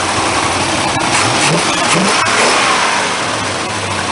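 Plymouth Road Runner's HEMI V8 running with the clatter of its solid lifters. It is blipped up briefly a couple of times about halfway through.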